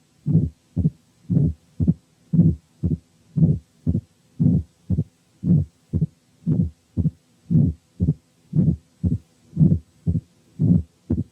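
Stethoscope recording of the heart sounds of a patient with mitral stenosis, beating regularly at about one beat a second. Each beat is a longer sound followed by a shorter one. The case is one in which the stenosis shows as first and second heart sounds with an opening snap and only a presystolic murmur, which comes out when the patient lies on the left side.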